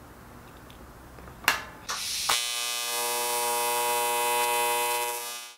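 Neon-sign buzz sound effect: a couple of sharp clicks, then a steady electric buzzing hum that cuts off suddenly.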